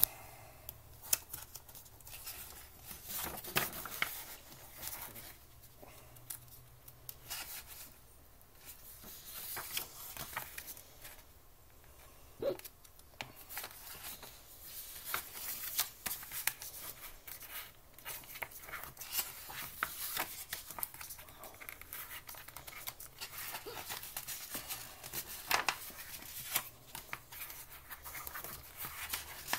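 Paper booklet pages being handled and turned by hand: irregular rustling and crinkling with scattered light clicks.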